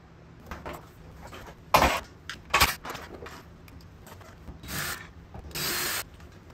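Handling noises: two sharp knocks, a little under two seconds in and again about half a second later, among lighter clicks, then two short stretches of rubbing and scraping.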